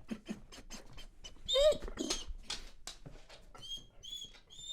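Dog whining and whimpering: a run of short soft noises, a brief yelp about a second and a half in, then thin high-pitched whines near the end.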